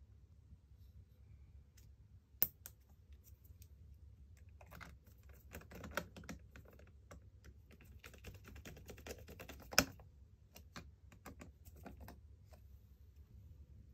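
Scattered light clicks and taps of small parts being handled inside an opened Lenovo Legion Y530 laptop, busiest in the middle, with two sharper clicks about two and a half seconds in and just before ten seconds.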